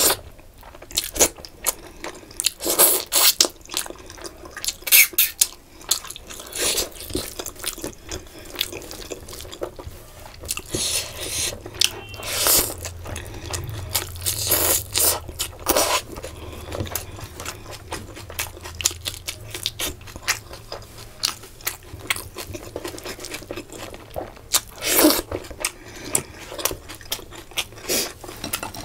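Close-miked mouth sounds of someone eating rice and curry by hand: chewing with wet smacks and sharp clicks, in irregular bursts that come and go.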